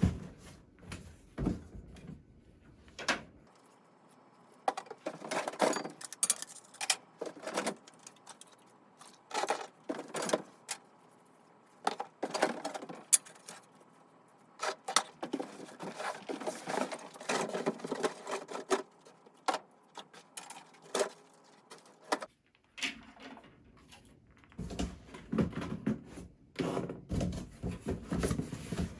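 Plastic fire alarm speaker strobes and their covers being unpacked and handled: an irregular string of clicks, knocks and rustles, with a brief lull about three quarters of the way through.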